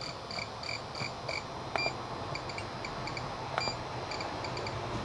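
Beeper of a small electronic DC load tester giving quick short high beeps, about five a second, as its setting is turned up. This is followed by single beeps with faint clicks about two and three and a half seconds in.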